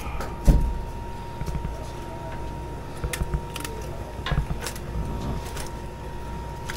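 Steady low rumble of a fishing boat's engine, with scattered light clicks and knocks and one heavy thump about half a second in. A faint steady high tone runs underneath.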